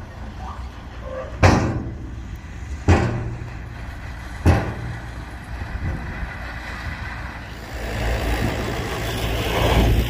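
Heavy diesel machinery running steadily with a low engine hum, broken by three sharp bangs about a second and a half apart. Near the end the engine noise swells and grows louder.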